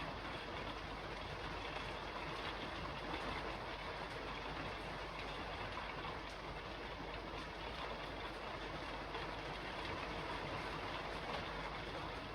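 Steady rain falling on a roof: an even hiss with faint scattered ticks of drops, holding steady throughout.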